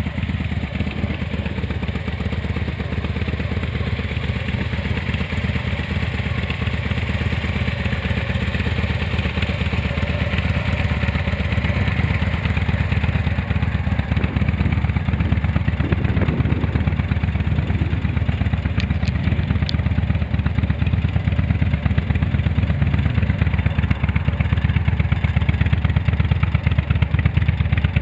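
Harley-Davidson FXDC's V-twin engine running through Doublehead Type II aftermarket silencers: a steady, low, pulsing exhaust note that grows a little louder toward the end.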